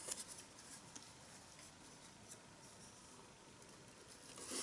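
Faint handling of a folded cardstock gift bag as its sides are pressed onto adhesive: a few light ticks and soft paper rustles, with a little more rustle near the end.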